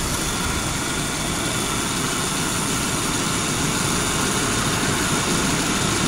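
A 2005 Subaru Forester's flat-four engine idling steadily under the hood, with the air-conditioning compressor running while the system is recharged with refrigerant.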